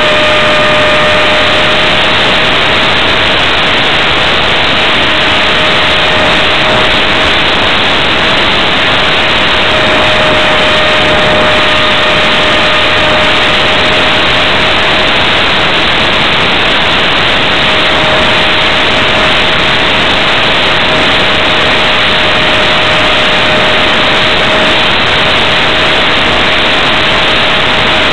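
Steady whine of an F-27C Stryker's electric pusher motor and propeller in flight, a constant tone under loud rushing wind noise on the onboard camera's microphone.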